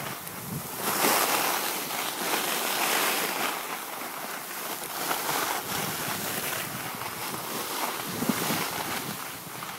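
Skis hissing and scraping over packed snow on a downhill run, with wind rushing over the microphone; the rush swells and eases as the skier moves.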